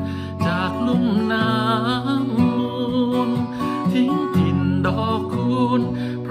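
A man singing a Thai luk thung song in a wavering voice, to his own acoustic guitar.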